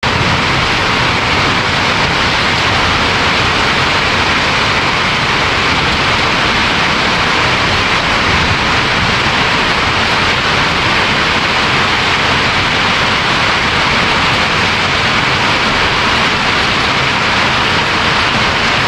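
Hail and heavy rain pelting roofs and the ground in a loud, steady, dense hiss that does not let up.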